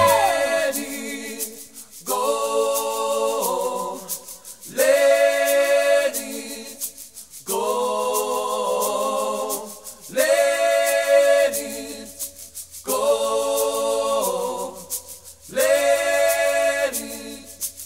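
Layered wordless vocal harmonies singing a cappella chords, six held phrases of about two and a half seconds each with short breaks between, over a light shaker.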